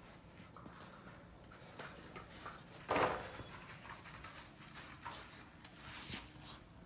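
American bully puppies scuffling and moving about on artificial turf and a tile floor: soft scattered scrapes and knocks, with one louder short rasping noise about three seconds in.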